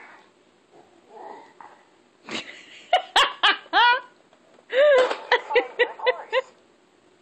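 Laughter in two runs of short, loud bursts, one about three seconds in and one about five seconds in, each burst falling in pitch.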